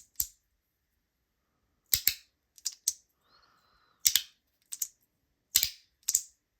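Small magnetic slider fidget with a PEI plastic body and strong magnets (01EDC Pei Pod) being snapped back and forth: sharp plastic clicks, often in quick pairs, about one to two a second.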